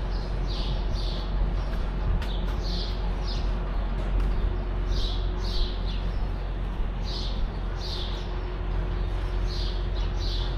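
A bird repeats a high two-note chirp, one pair about every two seconds, over a steady low hum.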